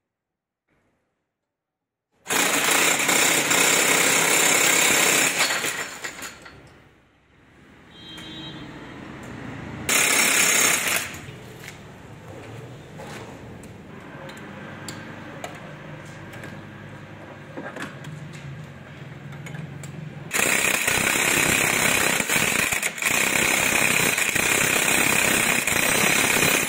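Pneumatic impact wrench hammering on a fastener under the car, in three loud runs: about four seconds long starting two seconds in, a short one about ten seconds in, and a long one over the last six seconds. Quieter clatter of the tool and air fills the gaps between them.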